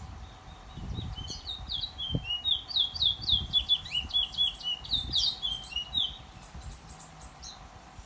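A caged songbird singing a fast, jumbled song of many short, downward-sweeping whistled notes that lasts about five seconds, then stops.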